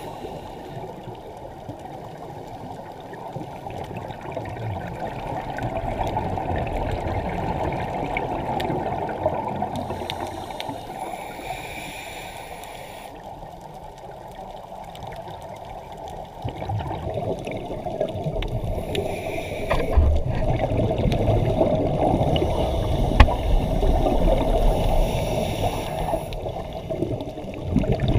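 Muffled underwater rush through an action camera's waterproof housing, with scuba regulator exhalation bubbles breaking out every several seconds and a few sharp clicks.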